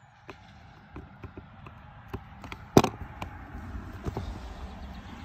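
Plastic clips of a robotic lawnmower base station cover being pried apart with a small screwdriver: scattered light clicks, then one sharp loud snap nearly three seconds in, with a low rumble growing under it afterwards.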